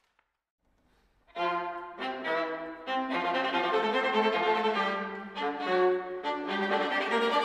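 Brief near silence, then about a second in a string quartet starts playing together: bowed violin, viola and cello in a piece of contemporary classical music, sustained and loud from the first chord.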